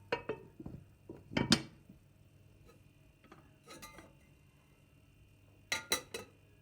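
Dishes and cutlery being handled: scattered clinks and knocks, the loudest about a second and a half in, and three quick clinks near the end.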